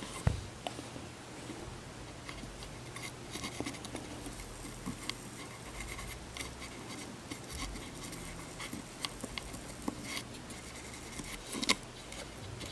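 Cotton swab dipped in vinegar scrubbing corrosion out of a multitester's battery compartment: faint scratching and rubbing with many small clicks, and one sharper click near the end.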